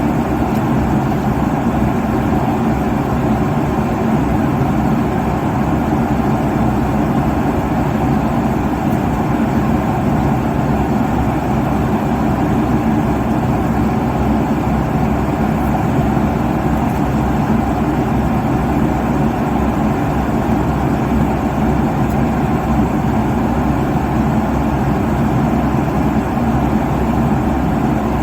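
Steady cabin noise of an airliner at cruise altitude: the even rush of engines and airflow heard from inside the passenger cabin, unchanging and strongest in the low and middle range.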